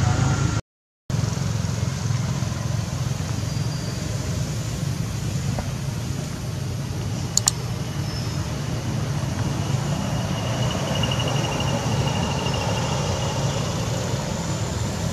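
Steady low rumble of road traffic, with no rise or fall. It cuts out completely for a moment a little under a second in, and there are two short sharp clicks about halfway through.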